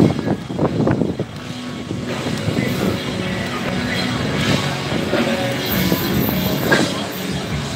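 Street noise at night: a vehicle running past over a steady hubbub, with music from the bars under it. A few knocks from the phone being handled come in the first second.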